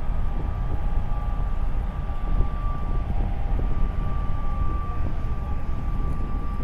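Marine engine running with a steady low rumble, and a constant high whine over it.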